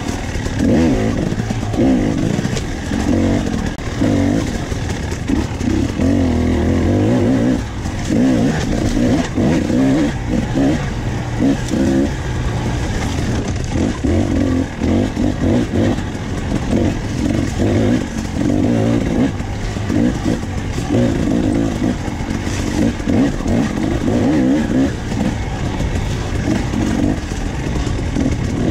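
Dirt bike engine running through a ride on a narrow dirt trail, its revs rising and falling every second or two.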